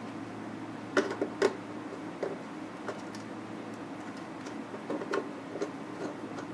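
Irregular small clicks and taps of speaker wires being fitted and screwed into a car amplifier's speaker terminals, about eight of them, the loudest about a second in.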